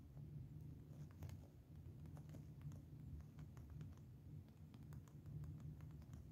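Faint, irregular taps of typing on a smartphone's touchscreen keyboard, a few a second, over a low steady hum.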